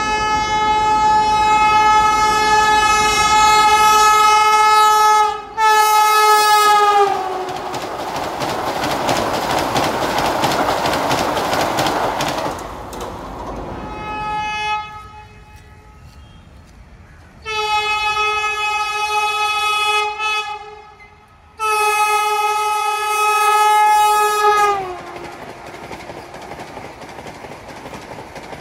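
Vande Bharat Express trainset blowing long multi-tone horn blasts as it speeds toward a level crossing. The pitch drops as it passes, then the rushing, clattering noise of the coaches going by follows. A second Vande Bharat does the same: two long horn blasts, the second falling in pitch at its end, then the running noise of the passing train.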